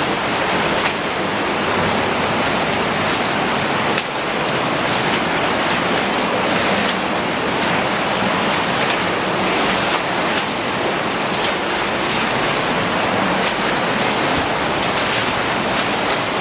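Cave streamway water rushing steadily and loudly, with the sloshing and occasional sharp splash of someone wading through deep water.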